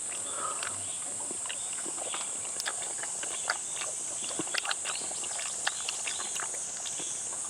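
A steady high-pitched chorus of insects drones on throughout, with scattered short clicks and smacks from chewing and utensils.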